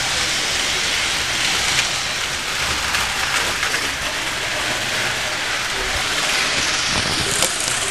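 Model trains running on a home layout: a steady rushing, hissing noise with a faint low hum underneath.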